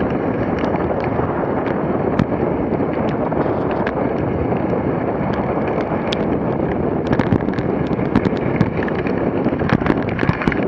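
Dog sled running fast on a packed snow trail: a steady rushing noise of the runners on snow and wind on the microphone, with scattered sharp clicks and crackles from the sled.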